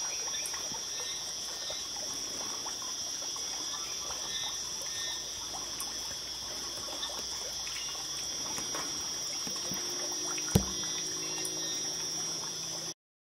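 Night forest insect chorus: a steady high-pitched drone in two bands, with many small scattered clicks and ticks. A single sharp knock about ten and a half seconds in is the loudest sound, and everything cuts off abruptly shortly before the end.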